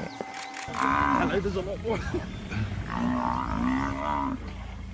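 African buffalo bawling in distress under a lion attack, with repeated long, drawn-out calls.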